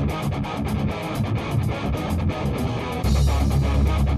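Rock music: strummed electric guitar over a steady beat. About three seconds in, a heavy low bass part comes in and the music grows louder.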